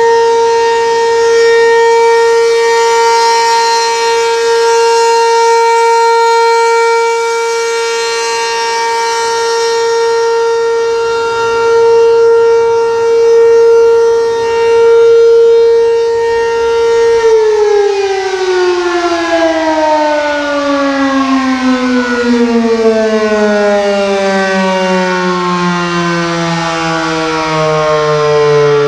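ACA P-15 outdoor warning siren sounding its steady Alert tone, one held pitch that swells and fades in loudness. About seventeen seconds in the signal ends and the siren winds down, its pitch gliding steadily lower.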